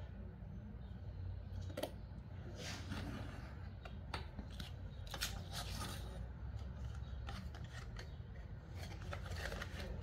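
Craft knife blade scoring and slicing thin cardboard along a ruler on a cutting mat: a few irregular scratchy strokes, with the card rustling as it is handled, over a low steady hum.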